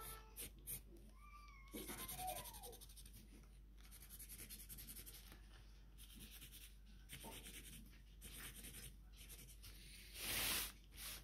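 Felt-tip marker scratching in short strokes across a thin plastic bag, with a few squeaky rising and falling tones about two seconds in. About ten seconds in, the plastic bag gives one loud rustle as it is moved.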